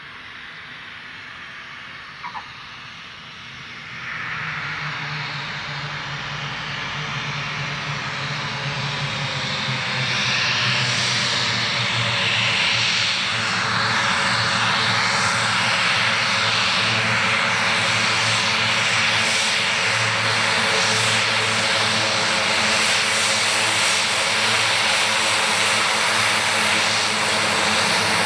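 The twin Garrett TPE331 turboprop engines and propellers of a Short SC-7 Skyvan taxiing, a steady droning hum with a hiss above it. The sound jumps louder about four seconds in and keeps growing as the aircraft comes closer, then holds steady and loud.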